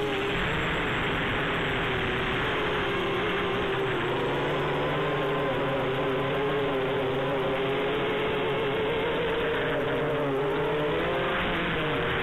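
Quadcopter drone's electric motors and propellers buzzing in flight, the pitch wavering up and down as the throttle is corrected.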